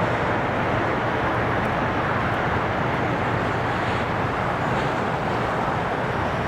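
Steady jet roar from a Boeing 777-300ER's two General Electric GE90-115B turbofans, loud and even with a low hum underneath.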